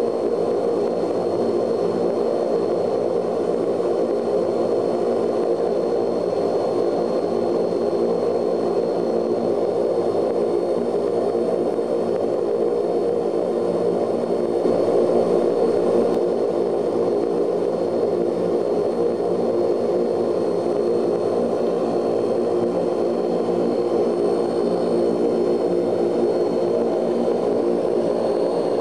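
Ilyushin Il-18's four turboprop engines heard from inside the cabin as the airliner rolls along the runway: a steady, dense drone with a thin high-pitched turbine whine over it, swelling slightly about halfway through.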